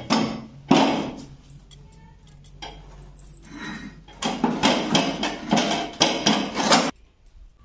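A steel two-burner gas stove being handled on a concrete floor: one sharp metal knock about a second in and a few small clicks as the burner parts are fitted. A louder, denser stretch of sound fills the last few seconds and stops suddenly.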